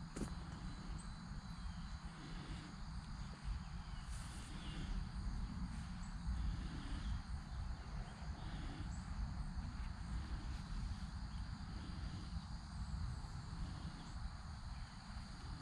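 Outdoor ambience of insects chirring steadily, with a low rumble underneath.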